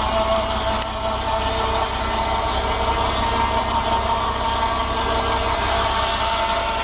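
Fordson Power Major's diesel engine running steadily under load, driving a 4 ft 6 in carbide-tipped circular saw blade on a rack sawmill, with a low engine rumble beneath a steady high saw whine.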